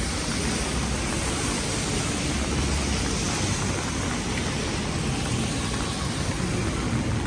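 Steady rain falling on a city street, an even wash of noise with a low rumble underneath.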